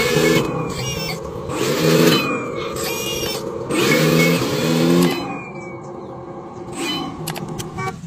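Engine sound of a model articulated dump truck, revving up and down in several short bursts, then running more quietly. Sharp clicks come near the end.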